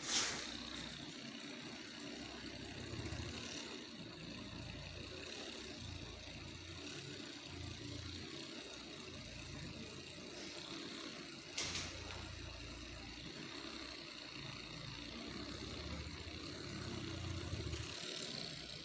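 A steady machine hum with an uneven low rumble and a thin high whine. A single sharp click comes about twelve seconds in.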